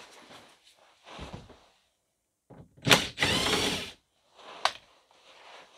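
Cordless drill-driver with a T27 Torx bit spinning out an engine undertray screw: one loud burst just under a second long about three seconds in, with light handling knocks before it and a sharp click a second after.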